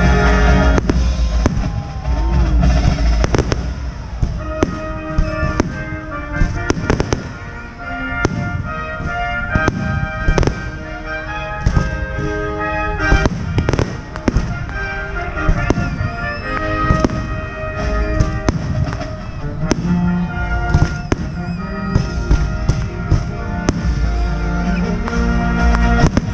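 Fireworks bursting in frequent sharp bangs and crackles throughout, with music playing at the same time.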